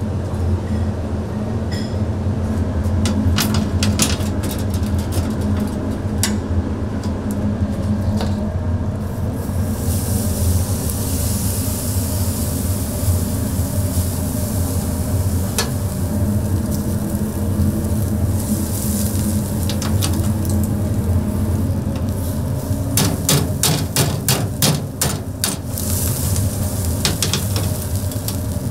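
Kitchen cooking sounds: food sizzling over a steady low hum, with scattered clicks and clatter of utensils and a quick run of knocks near the end.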